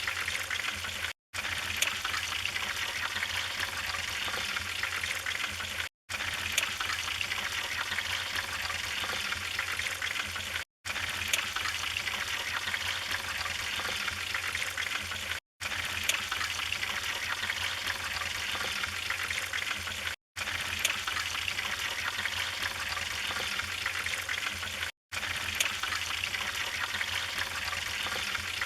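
Wood fire burning in a fireplace: a steady hiss with scattered sharp crackles and pops. The sound cuts out in a brief silent gap about every five seconds.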